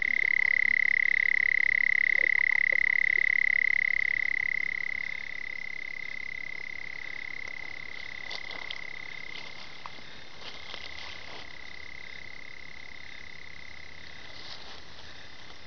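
Red-bellied toad (Melanophryniscus aff. tumifrons) calling a long, unbroken, high-pitched trill. It is loud at first and becomes fainter about five seconds in. Scattered light clicks and rustles come in during the second half.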